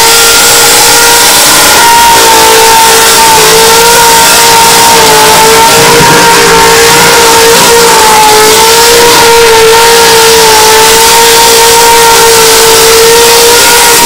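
Ford Cleveland V8 in a Falcon XD ute held at high revs through a burnout, the rear tyres spinning. Loud, with one steady high note that wavers only slightly.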